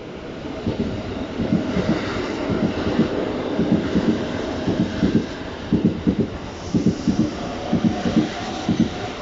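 Keikyu New 1000 series train rolling slowly past, its wheels knocking irregularly over the rail joints, with the knocks coming thicker in the second half over a faint steady whine.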